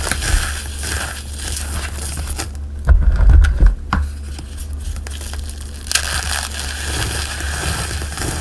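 Dyed gym chalk and cornstarch being crushed and squeezed by hand: continuous crunching and crumbling, with a heavy low bump a few seconds in.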